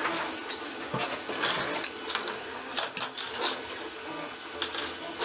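Light clicks and taps of 3D-printed plastic parts being handled and fitted together, with a faint steady mechanical whir underneath.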